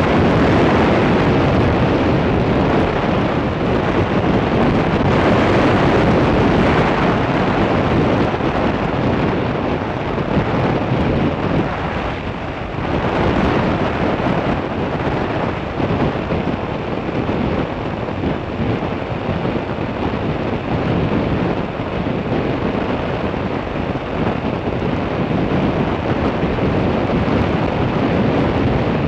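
Loud, steady wind rushing over the microphone of a camera travelling along a road at speed.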